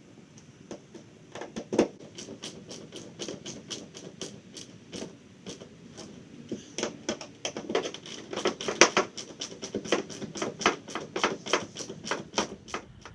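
Screws being driven by hand to fasten a deck eye to the side of a plastic kayak hull: a run of sharp, irregular clicks, a few a second, from about a second in until near the end.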